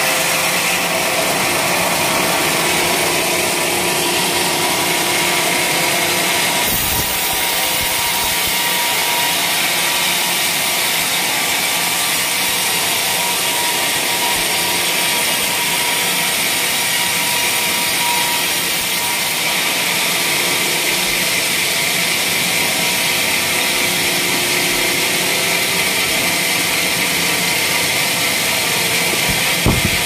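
Band sawmill blade cutting lengthwise through a waru (sea hibiscus) log. The saw runs steadily in the wood with no let-up.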